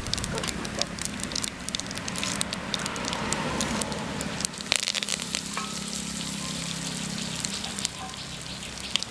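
Whole spices (mustard seeds, cumin, cinnamon and cloves) sizzling in hot oil for a tempering, with a steady hiss and many small pops and crackles.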